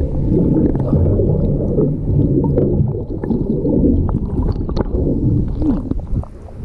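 Muffled underwater noise from a camera held below the sea surface: low water rushing and gurgling with scattered small clicks. It drops in level about six seconds in.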